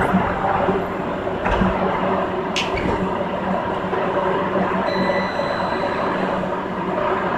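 CAF FE-07 Metro train running on steel wheels, heard from inside the driver's cab: a steady running rumble with a constant hum. Two sharp knocks come about a second and a half and two and a half seconds in, and a thin high tone joins about five seconds in.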